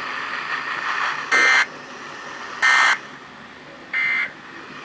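Emergency Alert System end-of-message code: three short bursts of SAME digital data tones, each about a third of a second long and about 1.3 s apart, over radio hiss, marking the end of the Special Marine Warning.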